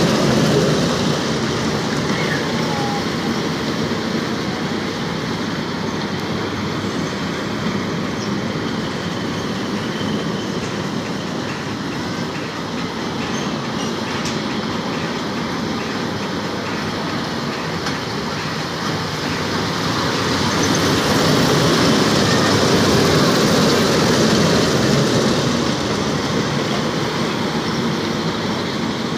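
Amusement-park kiddie train rolling on its small steel-tube track, its wheels rumbling and clattering on the rails. Loudest at the start and swelling again a little past two-thirds of the way in.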